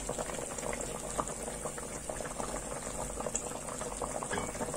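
Thickened apricot jam boiling in a pot: a steady, dense bubbling made up of many small pops.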